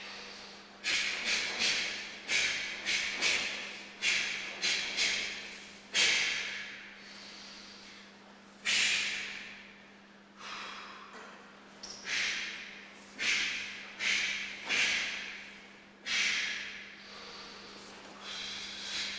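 A karate practitioner's sharp, hissing exhalations, one with each technique of a kata: a quick run of about ten in the first five seconds, then single breaths a second or more apart, each starting hard and trailing off.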